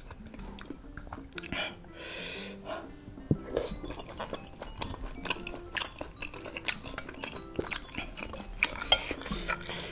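Metal fork and spoon clicking and scraping against a white ceramic bowl of baso aci meatballs in spicy broth, with wet chewing, over soft background music.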